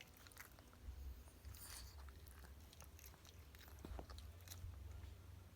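A dog chewing: faint, irregular small crunches and clicks over a low rumble.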